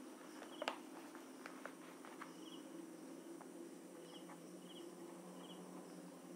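Quiet pen-on-paper writing in a notebook, with a few light taps and one sharper click under a second in. Short high insect chirps repeat about once a second over a low steady hum.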